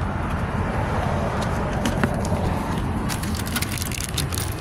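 Ice cream truck's engine idling with a steady low rumble. A cluster of sharp clicks and rustles comes near the end.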